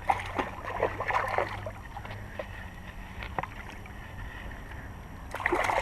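Water splashing and sloshing as a hooked bass is fought at the surface and landed close to the bank, with scattered short clicks and knocks and a bout of splashing near the end.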